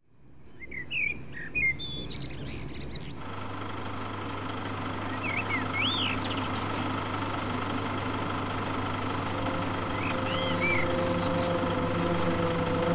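Birds chirping in short calls over a steady droning hum, fading in from silence. The hum enters about three seconds in and slowly swells, and a higher held tone joins near the end.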